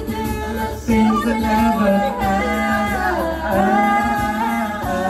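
A pop song: a woman's voice singing a wavering melody over a steady backing track.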